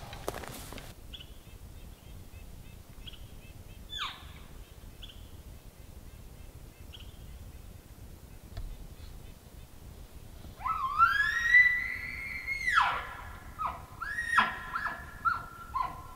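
An elk bugle: a note that climbs into a long high whistle and breaks off, followed by a run of short chuckles. A single short falling squeal sounds about four seconds in.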